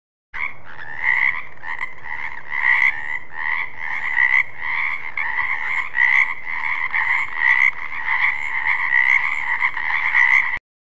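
A chorus of frogs croaking, many calls overlapping in a dense, pulsing rattle. It starts abruptly just after the beginning and cuts off suddenly near the end.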